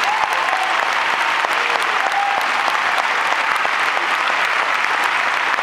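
An audience applauding steadily, dense clapping with a few scattered shouts.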